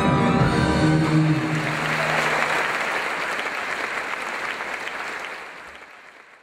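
Music ends about a second in and audience applause follows, fading out near the end.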